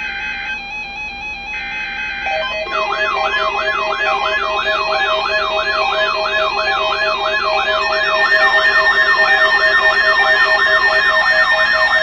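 NOAA Weather Radio Required Weekly Test: the buzzy data bursts of the SAME header end about two seconds in. A weather radio alert alarm then takes over, a warbling tone sweeping up and down about two to three times a second over steady tones, and it gets louder about eight seconds in.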